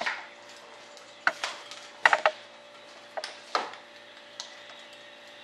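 A string of irregular sharp knocks and clacks, about eight in all, with a close cluster of the loudest about two seconds in. A faint steady hum runs underneath.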